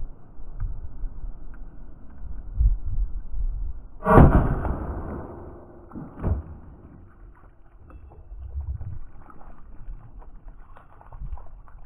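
A single 9mm pistol shot from a Smith & Wesson M&P Shield 2.0 firing a Winchester 147-grain STX +P hollow point, sharp and loud about four seconds in, dying away over about a second. A smaller thump follows about two seconds later, over a steady low rumble.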